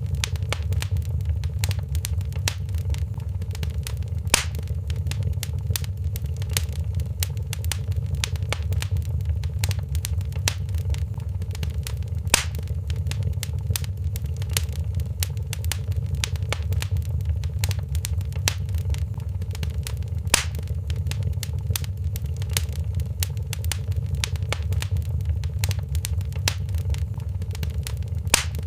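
Wood fire crackling in a fireplace: a dense run of small crackles over a steady low rumble, with a louder pop about every eight seconds.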